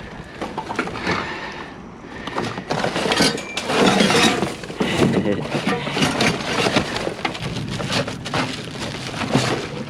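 Junk and scrap being rummaged through and shifted in a dumpster: a dense, irregular clatter of knocks and clinks that gets busier and louder about two and a half seconds in.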